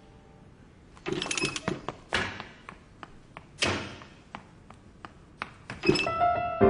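A few sharp knocks and thuds with lighter taps between them. Music comes back in near the end.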